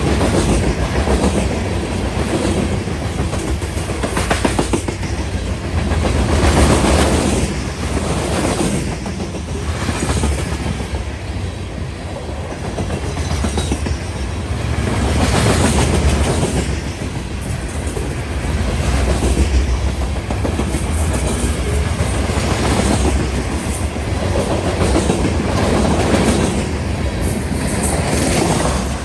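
Slow-moving CSX freight train passing close by: steel wheels clacking over the rail joints under a steady low rumble, swelling and easing every few seconds as each car goes by.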